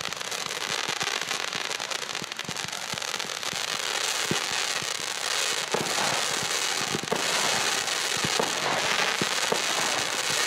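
Fireworks display: many quick pops and shots from rising shells over a dense crackling hiss, which grows louder about four seconds in and stays strong.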